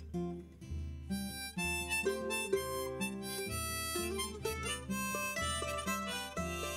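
Irish folk tune's instrumental break: a harmonica plays the melody, coming in about a second in, over strummed acoustic guitar and a bodhrán keeping a steady beat about once a second.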